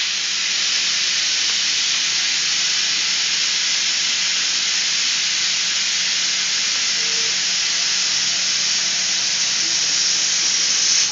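Aluminium pressure cooker's whistle blowing off steam in one long, loud, steady hiss that starts sharply and cuts off at the end. This is the third whistle, the signal that the rice is cooked and the gas can be turned off.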